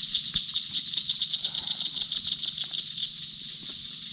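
Evening chorus of calling animals: a high, rapidly pulsing trill, about ten pulses a second, that smooths into a steadier ringing about three seconds in, with a few faint clicks.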